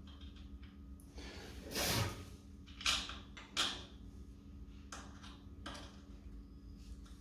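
Bicycle crankset parts and tools being handled during reassembly: a sliding scrape about two seconds in, then a few sharp metallic clicks and knocks.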